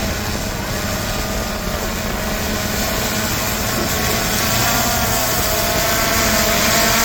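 Quadcopter drone's propellers humming with a steady whine that wavers slightly in pitch, growing a little louder near the end.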